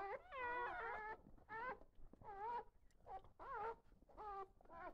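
Newborn goldendoodle-cross puppies whimpering and squeaking: a string of short, high, wavering cries, several overlapping about half a second in, then single cries coming roughly every half second to second.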